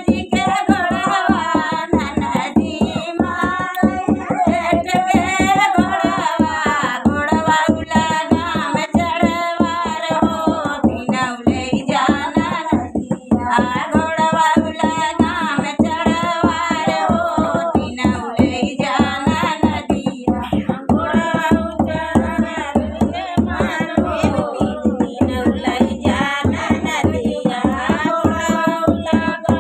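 A woman sings an Awadhi uthan folk song with a bending, ornamented melody. She accompanies herself with hand strokes on a dholak, a two-headed barrel drum, in a steady beat.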